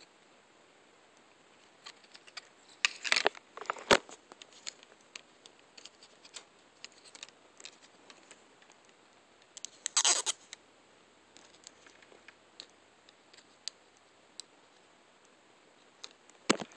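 Clear plastic packaging of an iPod nano being handled: scattered small clicks and scrapes, a brief crinkle of plastic about three seconds in and another, louder one about ten seconds in, with sharp knocks at about four seconds and near the end.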